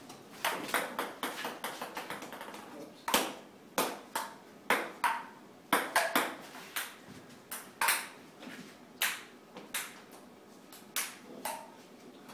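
Ping pong balls clicking off paddles and the table in a rally, one sharp click about every half second to a second. It begins with a quick run of fading bounces, like a ball bouncing to rest.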